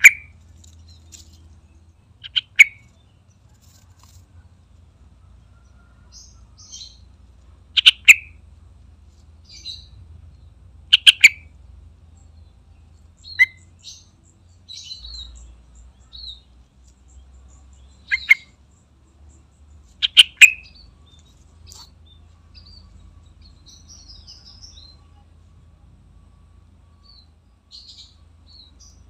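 Yellow-vented bulbul calling: about six short, loud, sharp phrases a few seconds apart, with softer high chirps in between.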